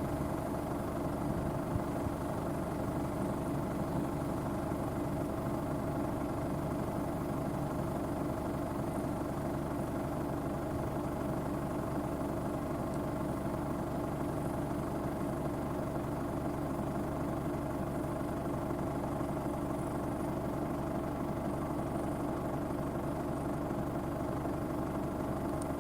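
Case IH Axial Flow 9240 combine running steadily, an even machine drone made up of several steady tones.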